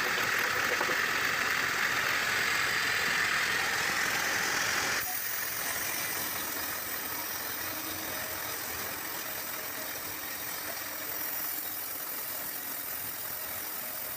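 Sawmill machinery running steadily, with a rattling, engine-like sound. About five seconds in it changes abruptly to a quieter, more even running noise.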